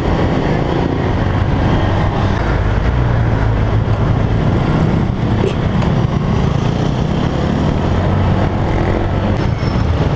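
Motorcycle riding at steady speed: the engine running evenly under a constant rush of wind noise.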